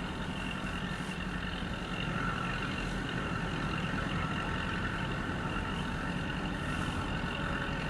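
Natural gas compressor station running: a steady mechanical drone with a constant whine on top, unbroken throughout.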